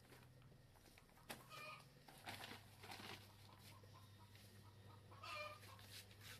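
Faint clucking of a chicken, one short call about a second and a half in and another about five seconds in. Between them come soft rustles of a plastic polybag and soil being handled.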